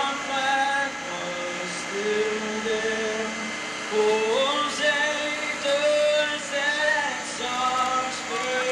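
A singer's voice holding slow, long notes, sliding up between some of them, with music.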